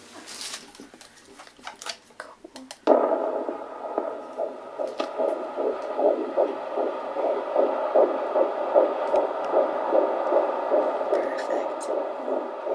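Fetal heartbeat picked up by a handheld fetal Doppler monitor: a fast, even pulsing whoosh of about two beats a second that comes in suddenly about three seconds in. A few clicks and rustles of the probe being placed come before it.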